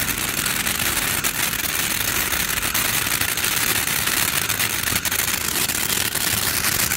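500-gram ground fountain firework burning steadily: a continuous loud hiss, peppered with fine crackling.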